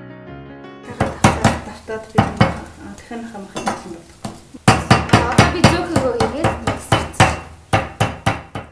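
Wooden meat mallet pounding raw chicken breast flat on a wooden cutting board: a run of sharp knocks, several a second, easing off for about a second midway and then resuming. Piano music ends just before the knocking starts.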